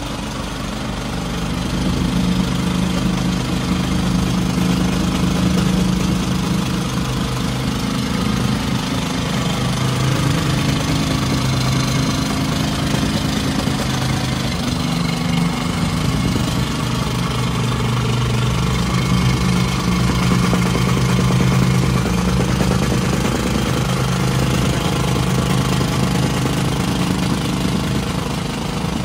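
Petrol-engined tamping rammer running under load, its small engine droning steadily over the rapid pounding of the rammer foot compacting soil. The engine comes up to working speed about a second in.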